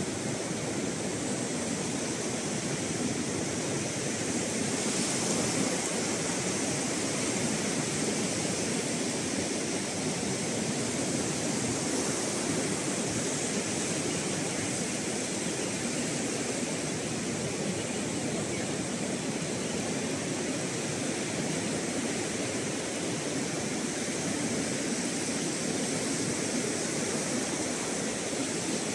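Surf breaking on a sandy beach: a steady, even rush of waves.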